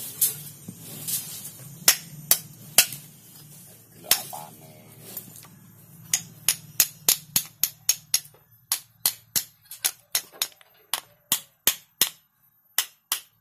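Claw hammer striking the metal pump assembly of a dismantled cooling-machine compressor: a few scattered blows, then a steady run of sharp strikes at about three a second from halfway through.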